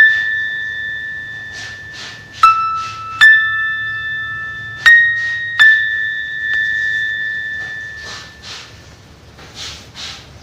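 Slow, sparse background music: single bell-like keyboard notes struck one at a time, about five in the first six seconds, each ringing on and dying away, with soft short swishing noises between them and fading out over the last few seconds.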